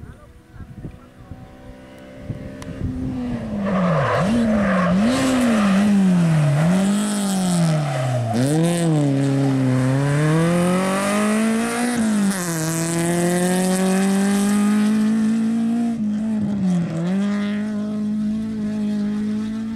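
Rally hatchback's engine at full stage pace, arriving about three seconds in. The revs drop and climb several times in quick succession, then hold high and steady with one brief dip near the end.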